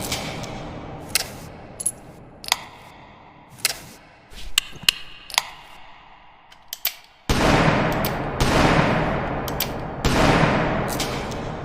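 .44 revolver sound effect: the echoing tail of a shot fades out, followed by a string of sharp metallic clicks and clinks, then two loud shots about two and a half seconds apart, each trailing off in a long echo.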